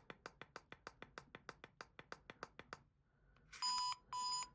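Sonic screwdriver toy's button clicked rapidly, about six clicks a second, then after a short pause three electronic beeps about half a second apart. The beeps are the hidden feature that the toy unlocks after its button is pressed fifteen times.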